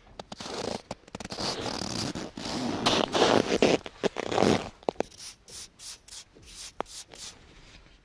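Lake ice cracking and crackling: a dense run of scratchy crackles that builds to its loudest in the middle, then thins out into scattered sharp clicks.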